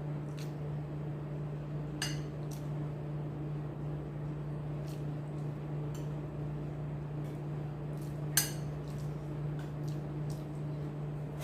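A few light clinks and taps of plates and cutlery while eating, the loudest about eight seconds in, over a steady low hum.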